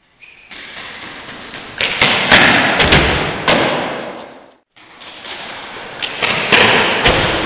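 Footsteps and hard thuds of a person running at and vaulting plastic wheeled trash bins, echoing in a gym hall. Each run grows louder as it nears, with several sharp knocks; the sound breaks off about halfway and a new run starts.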